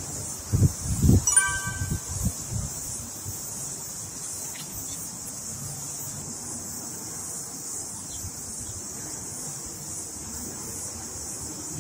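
Steady high chirring of insects in a garden. In the first second or so there are a few loud low thumps and rustles as a hand pulls coriander stems, and a single bright chime rings once briefly about a second and a half in.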